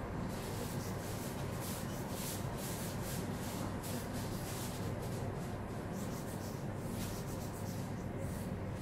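Steady low hum of room noise with faint, irregular soft rustling and rubbing sounds.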